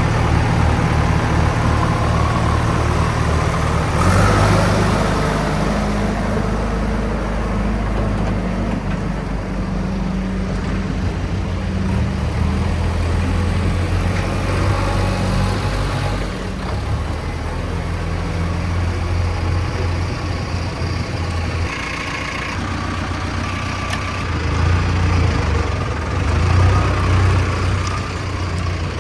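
Heavy diesel engines of a JCB 3DX backhoe loader and farm tractors running at work, the engine note shifting up and down, with louder swells about four seconds in and again near the end.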